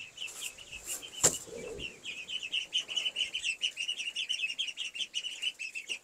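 Indian runner ducklings, two weeks old, peeping: a steady stream of rapid high chirps, with a single sharp knock about a second in.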